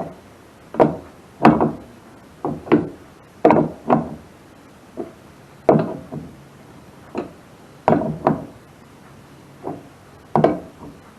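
About a dozen irregular knocks and clunks, some in quick pairs, as hand tools and fuel-line fittings are picked up, set down and worked on a workbench.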